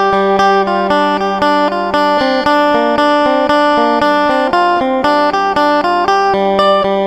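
Instrumental folk music: a plucked string instrument picks a quick melody, each note struck sharply, over a held drone note.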